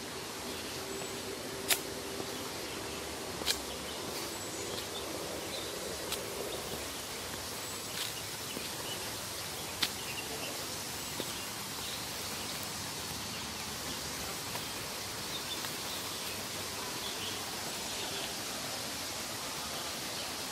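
Steady outdoor background ambience among trees, an even hiss, with a faint held hum during the first third and a few sharp clicks in the first ten seconds.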